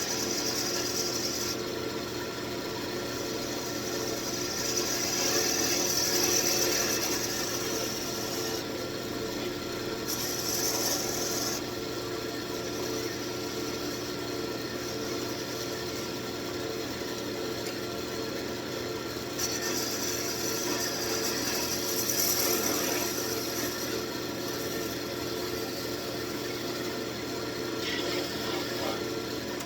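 Wood lathe running steadily while a turning tool cuts the spinning wood, its shaving hiss swelling and fading as each cut is made.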